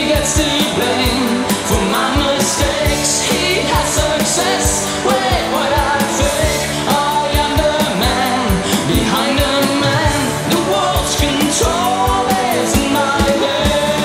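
Rock music from a band recording: a steady drum beat under a lead melody that bends up and down in pitch.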